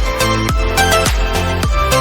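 Background music with a steady electronic dance beat, about two bass kicks a second under plucked melodic notes.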